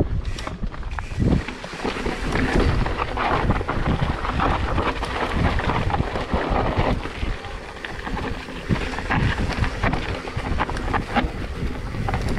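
Wind buffeting the camera microphone as an Ibis mountain bike rolls down a rocky dirt trail, with tyres crunching over gravel and many short clicks and knocks from the bike jolting over rocks.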